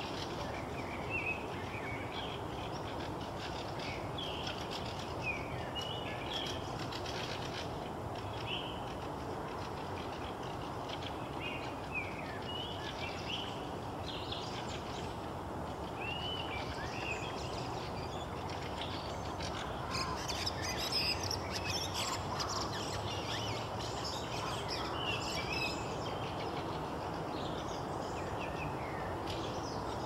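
Several small songbirds chirping and singing over a steady background hiss of outdoor ambience. About two-thirds of the way in there is a busier stretch of rapid chattering calls.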